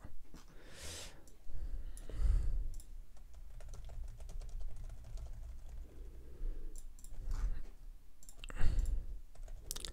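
Typing on a computer keyboard: irregular key clicks in short runs.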